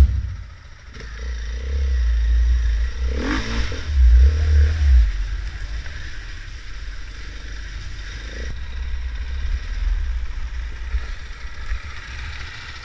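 Dirt bike being ridden along a wet trail, heard from the rider's own camera: the engine runs under a heavy low rumble that is loudest about four to five seconds in, with a brief rev a little after three seconds in.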